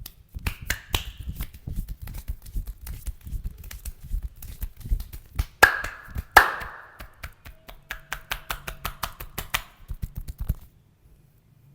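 Hands striking the body in fast percussive massage: a rapid run of chopping and slapping strikes, several a second, with two louder, sharper hits about halfway through. The strikes stop abruptly about a second before the end.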